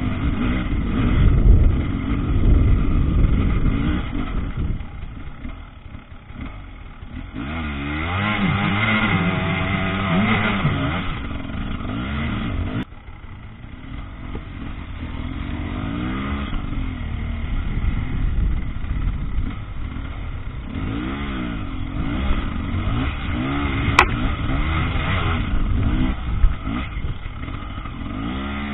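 Husqvarna TE300 two-stroke enduro motorcycle engine revving up and down under load on a rough trail, its pitch rising and falling again and again. The engine sound drops off suddenly about halfway through and then builds back up, and there is one sharp click near the end.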